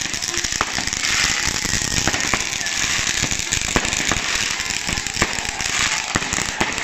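Firecrackers going off in many sharp, irregular bangs over the steady noise and voices of a crowd of football fans setting off flares.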